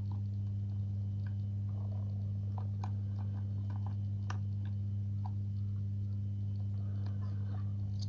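Faint, irregular small clicks of a hook pick working the pins inside an Avocet ATK euro cylinder lock under tension, over a steady low hum.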